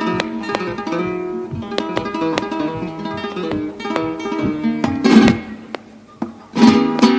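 Flamenco guitar playing a solo passage of plucked melody between sung verses, with loud rasgueado strums about five seconds in and again near the end.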